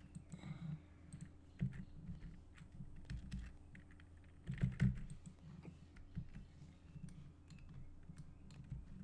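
Irregular clicking and tapping of a computer keyboard and mouse, with a louder cluster of clicks about halfway through, over a steady low hum.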